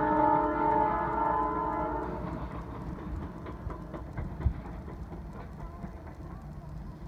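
A train's locomotive horn sounds a held chord that fades out about two seconds in. After it comes the low rumble of the passing train, with faint scattered clicks from the wheels.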